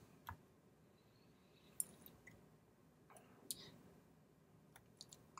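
Near silence broken by a handful of faint, sharp clicks spread through, with a few coming closer together near the end.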